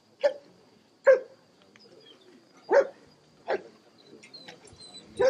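German shepherd dog barking: about five single barks at uneven gaps, with the last one near the end.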